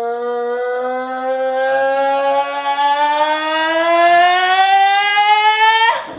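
A girl's voice holding one long note into a microphone and played through the loudspeaker of a Rubens tube, rising slowly in pitch and cutting off just before the end.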